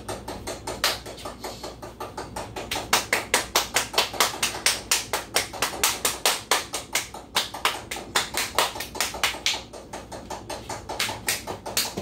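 Rapid, even tapping, about four sharp taps a second, louder for several seconds in the middle.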